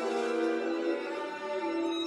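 Violins playing a waltz melody in long held notes over an orchestral accompaniment.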